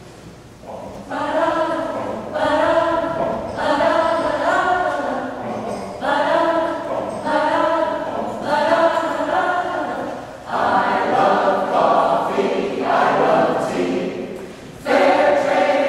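Mixed-voice choir of men and women singing a cappella. They come in about a second in and sing in short phrases with brief breaks between them.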